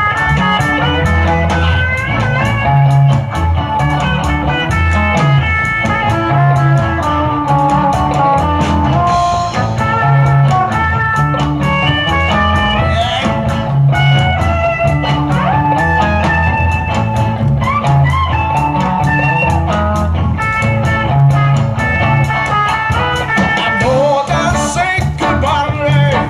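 A live rock band playing electric guitars over bass guitar and a drum kit, with a low bass pattern repeating about once a second.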